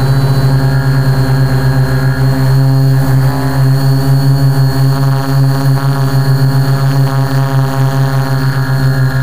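Quadcopter's electric motors and propellers running at a steady drone while holding altitude, picked up by its onboard camera's microphone, with a thin, high-pitched whine held steady above the drone.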